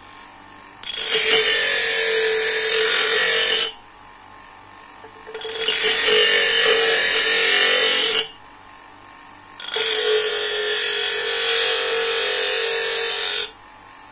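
Bench grinder's stone wheel grinding the end of a wooden dowel handle: three loud grinding bursts of three to four seconds each, separated by short quieter pauses.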